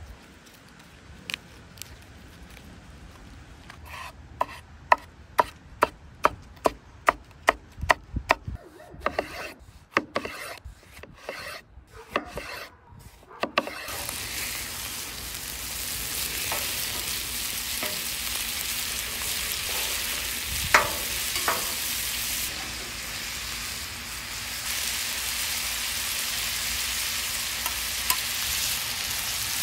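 A knife chopping on a cutting board in quick regular strokes, about two a second, which stop about halfway through. Then ground beef and onions sizzling steadily on a flat-top griddle, with metal spatulas scraping and chopping through the meat.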